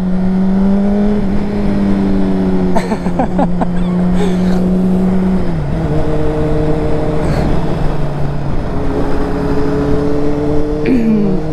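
Motorcycle engine running at a steady road speed, with wind rushing over the microphone. The engine note drops about halfway through, as on an upshift or easing off the throttle.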